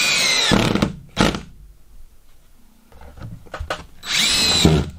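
DeWalt cordless drill driving drywall screws up through ceiling drywall into an OSB butt board. There are two runs of the motor, its pitch dropping at the end of each: the first stops just under a second in and is followed by a knock, and the second, shorter one comes about four seconds in.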